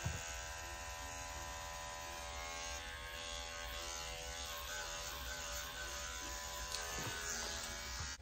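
Electric dog-grooming clippers running with a steady buzz as they clip a Scottish Terrier's coat around the head and ears. A brief soft knock comes right at the start.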